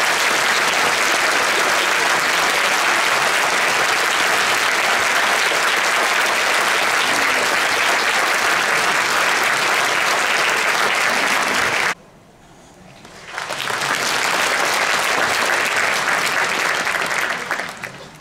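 Audience applauding steadily. The applause cuts off abruptly about twelve seconds in, swells up again a second or so later, and dies away near the end.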